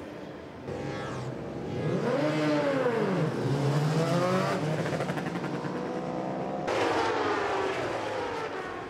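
Endurance racing superbike engines revving and passing, one sweeping up and then down in pitch about two seconds in, with another loud pass starting near the end.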